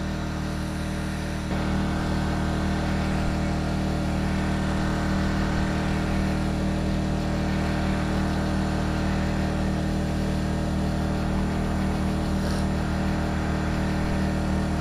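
A small engine on a bowfishing boat running steadily with an even hum, getting slightly louder about one and a half seconds in.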